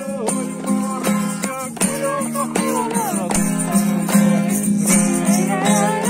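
A song with strummed acoustic guitar, shaken hand percussion keeping the rhythm, and singing voices.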